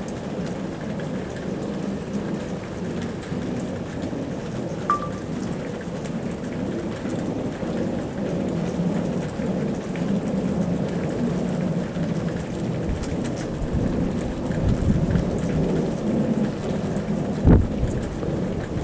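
Distant, steady rumbling roar that grows heavier in the low end over the last few seconds, with one sharp low thump near the end; the listener takes it for a power plant releasing steam.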